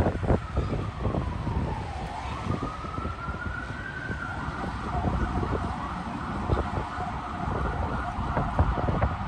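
Emergency vehicle siren wailing, its pitch sliding slowly down for about two seconds, back up for about two more, then holding high, over the low rumble of street traffic.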